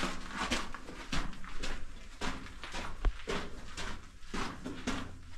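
Footsteps crunching on the loose dirt and rock floor of a mine tunnel, about two steps a second, with a single sharp knock about three seconds in.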